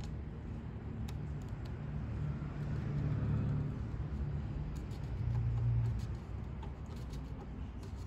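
Low steady background rumble that swells twice, with faint light clicks over it.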